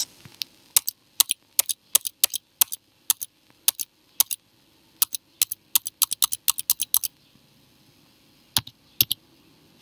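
Computer keyboard keys tapped one at a time, about thirty sharp clicks. They come irregularly at first, then in a quick run, then stop briefly before two last taps near the end. The keys are deleting characters from a line of text one by one.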